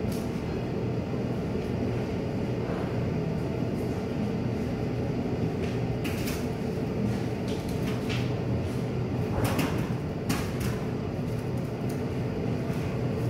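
Steady low machine hum, with a few sharp clicks and scrapes over it about halfway through.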